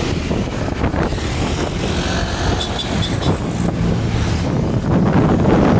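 Road vehicle engine and tyre noise from passing traffic, getting louder about five seconds in, with wind buffeting the microphone.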